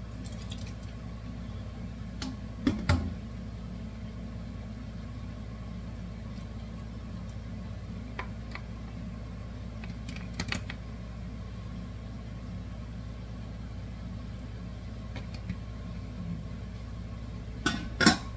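Scattered clinks and knocks of a glass measuring cup against a plastic canning funnel and the rim of a pot as hot salsa is poured into a wide-mouth mason jar, the loudest pair near the end, over a steady low hum.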